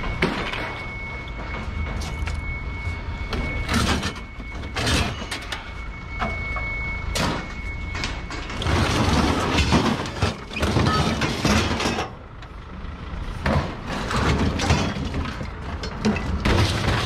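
Scrap metal clanking and banging as pieces are pulled off a trailer and dropped, over the low running of heavy yard machinery. A steady high-pitched tone sounds through the first half and stops about eight seconds in.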